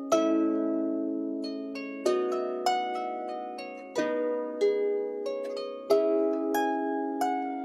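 Background music of plucked string notes and chords, a new chord coming every second or so and each one ringing out and fading.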